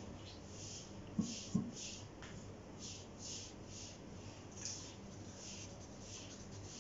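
Wooden stick stirring and scraping thick acrylic paint in a small cup: a run of soft rasping strokes, with two light knocks about a second in. The paint is being thinned with a little water to pouring consistency.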